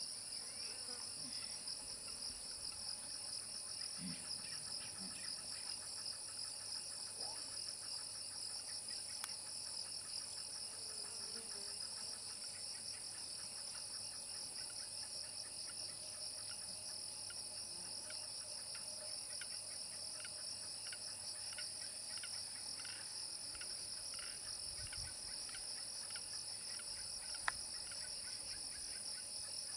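Steady, high-pitched chorus of insects: a continuous shrill drone in two pitches that never lets up, with faint scattered calls beneath it.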